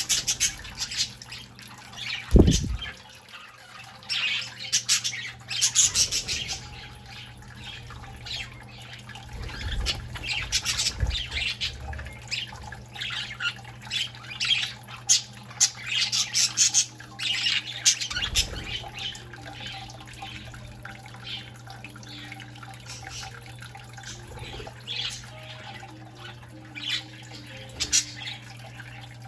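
Young budgerigars chirping and squawking in short, scattered bursts while bathing, over trickling fountain water and a low steady hum. A few dull thumps stand out, the loudest about two seconds in.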